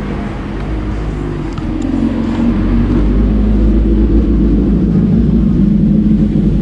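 Motorbike engine running close by, growing louder about two seconds in.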